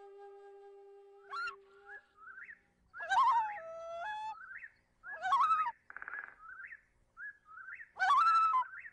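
Bird calls in a background music track: short rising chirps repeated two or three times a second, broken by louder swooping whistled calls every two to three seconds and a brief buzzy trill near the middle. A held flute note fades out about two seconds in.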